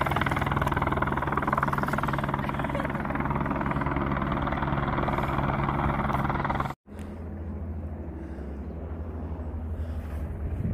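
Helicopter hovering: the steady fast chop of its rotor with engine noise. It cuts off abruptly about two-thirds of the way through, and a quieter low rumble follows.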